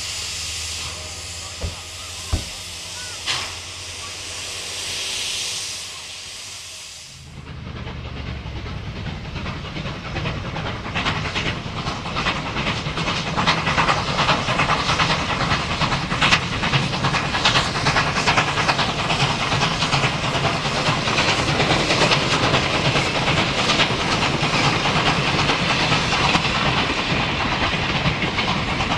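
NSW 59 class 2-8-2 steam locomotive 5910 standing with steam hissing from its cylinder drain cocks, with a few sharp knocks. About seven seconds in it changes to the locomotive working hard with a train, its exhaust chuffing fast and steadily over the rumble of the wagons.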